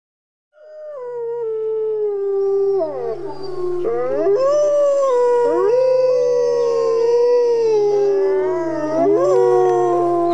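Several gray wolves howling together in a chorus, fading in about half a second in. The long howls overlap and each rises and falls in pitch, with a low steady hum beneath them.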